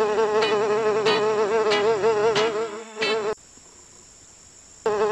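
A fly buzzing: a steady drone that wavers slightly in pitch. It breaks off a little past three seconds in and starts again about a second and a half later.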